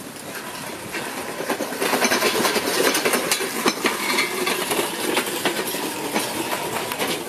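Weight-loaded push trolley on small hard wheels rolling fast over concrete, a steady clattering rattle that gets louder about two seconds in.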